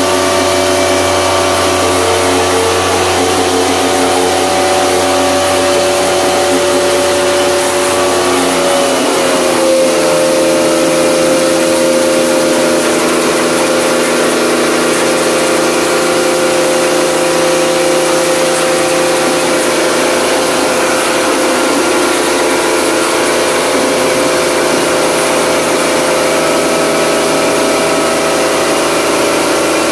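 Bosch Aquatak electric pressure washer running steadily while jet-washing an air conditioner's indoor coil, its motor pitch shifting about nine seconds in as the load changes.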